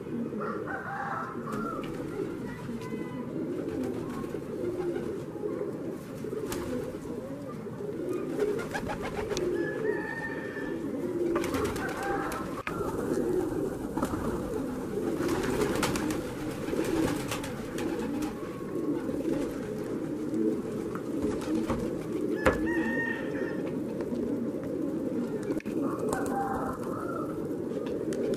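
A flock of domestic pigeons cooing together in a continuous low, overlapping chorus, with a few sharp taps scattered through it.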